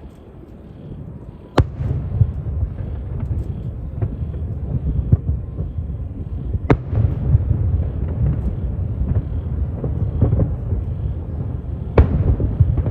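Fireworks display going off. A sharp bang about a second and a half in starts a dense low rumble of explosions and scattered pops, with two more loud bangs about halfway through and near the end.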